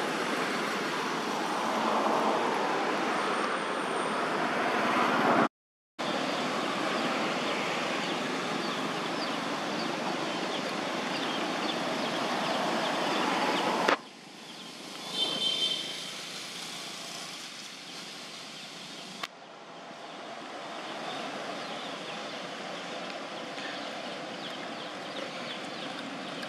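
Steady outdoor background hiss with no clear source, broken by two abrupt cuts. A brief high-pitched call sounds about fifteen seconds in.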